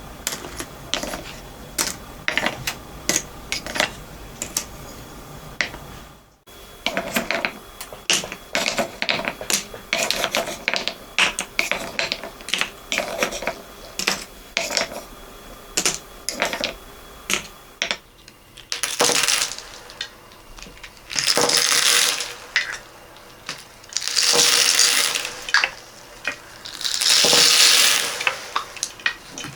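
Small beads clicking and rattling against one another as they are sorted with a wooden spoon, in many quick separate clicks. About two-thirds of the way in, pearl beads are poured from wooden bowls in four rushing pours of a second or two each.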